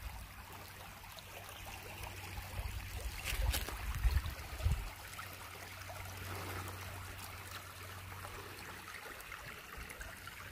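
Shallow woodland creek trickling steadily over stones and leaf litter. A few low rumbling bumps on the microphone come about three to five seconds in.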